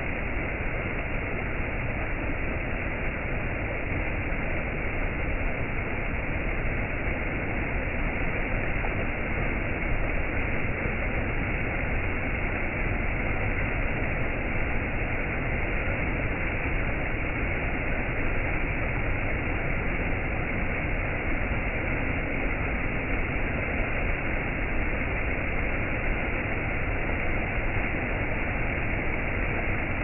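Water rushing over small rocky cascades in a shallow stream, a steady, even rush with no breaks.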